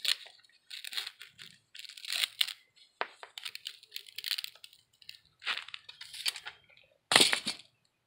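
Loose, unbonded casting sand crunching and grating in repeated scrapes as a bronze lost-foam casting is worked up out of its sand-filled flask by its sprue cup. The loudest scrape comes about seven seconds in.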